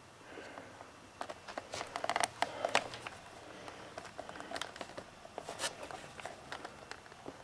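Scattered light clicks, taps and rustles of PVC parts being handled, the bolted plastic head plate being set onto the PVC pipe cylinder of a homemade oscillating engine. The clicks come thickest about two seconds in, with a second, sparser cluster later.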